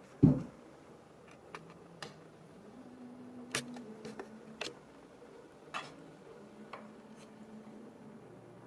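Handheld camera handling noise: a low bump just after the start, then several scattered light clicks and taps.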